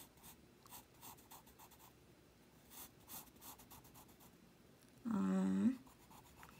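Pencil scratching on paper in short, faint strokes while drawing. About five seconds in, a person gives a brief hum, louder than the pencil.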